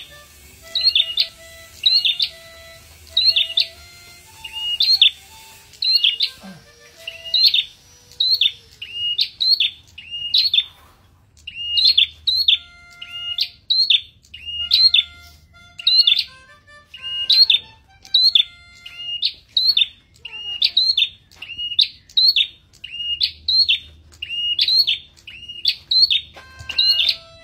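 Caged prenjak kepala merah in full song: a sharp, high, rising call repeated about once a second, with a brief pause about eleven seconds in.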